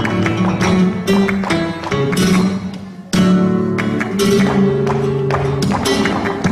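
Flamenco music led by acoustic guitar, with sharp strummed chords. It dies down a little before halfway through and comes back in suddenly with a loud strum.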